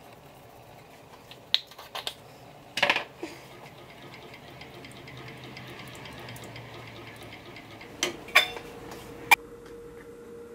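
Wooden spoon stirring thick yogurt in a stainless steel pot. It knocks against the pot in a few sharp clacks, loudest about three seconds in and again in a quick run near the end, with the soft sound of stirring in between.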